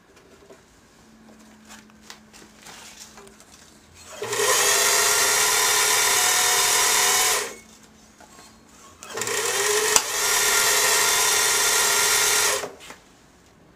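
A motor-driven leather-working bench machine runs twice for about three seconds each time, a steady whirring hum that starts and stops abruptly, as a piece of leather is fed through it.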